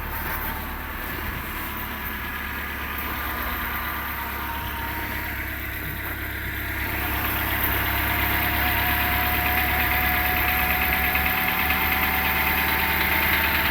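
Renault Logan 1 petrol engine idling after a cold start; from about halfway in, a rustling, chirring noise builds on top of the idle and grows louder toward the end. The owner cannot tell whether it is a knock or a rustle, and its cause is undiagnosed.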